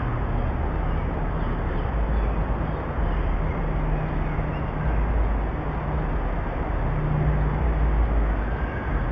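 Booming car stereo, its deep bass heard from outside: low notes that change every second or so over steady outdoor noise.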